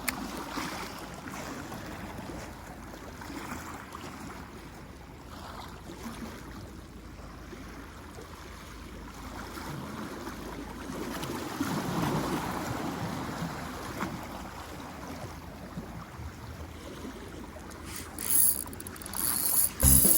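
Sea water washing and lapping in a steady low wash that swells about twelve seconds in. Music comes in near the end.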